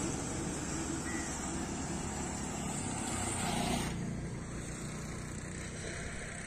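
Steady outdoor noise by a road: a low rumble with a hiss above it, the hiss dropping away about four seconds in.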